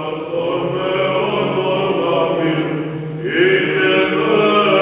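Eastern Orthodox liturgical chant sung by a small group of voices from a book at the lectern, with a held low note beneath the melody. A new, louder phrase begins about three seconds in.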